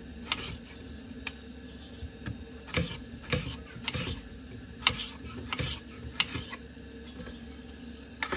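Cooking sounds: irregular clicks and scrapes of a utensil against a pan over a faint frying sizzle.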